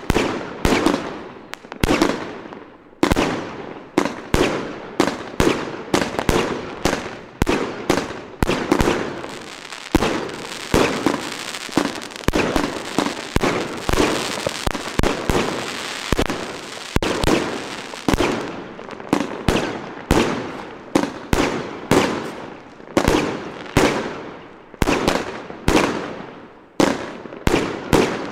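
Klasek Best Price 100/30 compound fireworks battery, a 100-shot, 30 mm F3 cake, firing a rapid, unbroken run of aerial shots. It goes at roughly two a second, each a sharp report that dies away quickly.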